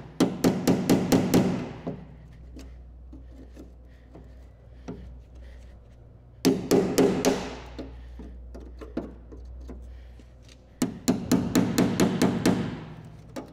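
Ball-pein hammer driving a chisel along the spot-welded seam of a steel car wing, in three bursts of quick blows, about five a second, with short pauses between them. The chisel is splitting the spot welds to free the panel.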